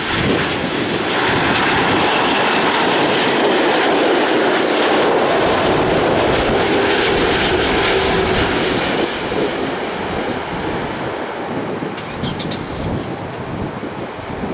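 Boeing 787 Dreamliner on final approach, the steady noise of its twin jet engines loud as it passes and easing somewhat over the last few seconds as it flares toward touchdown, with wind buffeting the microphone.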